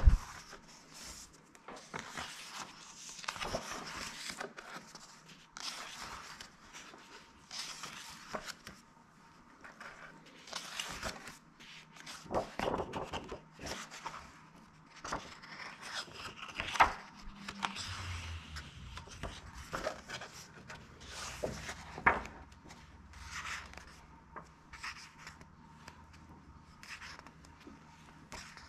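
Pages of a cookbook being turned by hand: irregular paper rustles and swishes as each page is lifted, flipped and smoothed flat, with a few sharper flicks.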